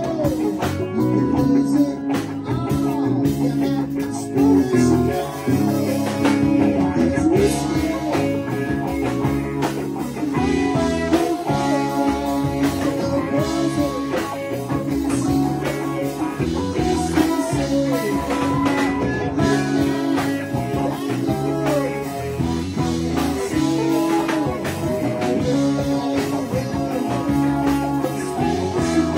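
Live band playing electric guitars over bass guitar, drums and keyboard.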